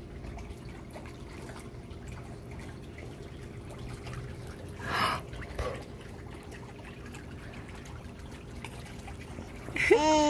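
Swimming-pool water trickling and lapping steadily, with a brief rush of noise about five seconds in. Near the end a baby lets out a short vocal sound.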